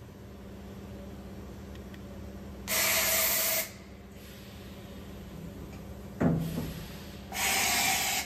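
Hardinge VMC-600 carrying out an automatic tool change: two hisses of compressed air, each about a second long and some four and a half seconds apart, with a clunk between them, over the machine's steady hum.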